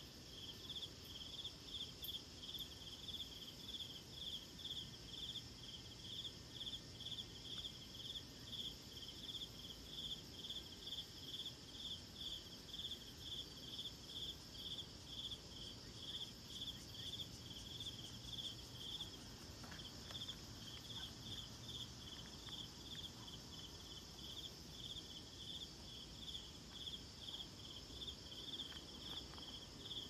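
Insects calling: an even, high chirping pulse about twice a second over a steady high-pitched drone.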